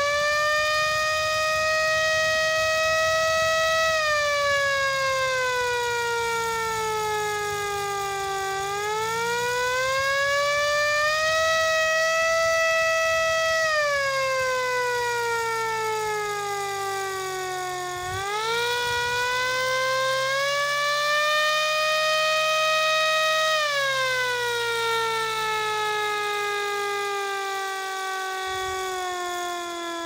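MS-190 motor-driven siren wailing: its tone winds up to a steady high pitch and then winds down, three times over, with the last wind-down sliding slowly lower through the end.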